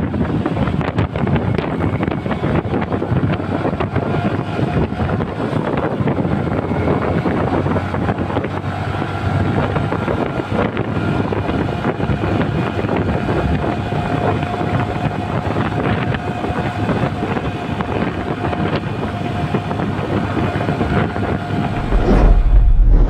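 Motorcycle running on the road with heavy wind buffeting the microphone, the engine's faint steady tone under the rush of air. A loud deep rumble comes in near the end.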